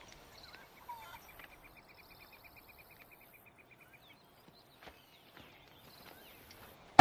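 Faint countryside ambience of birds chirping, with a rapid, even trill running for a few seconds from about a second in.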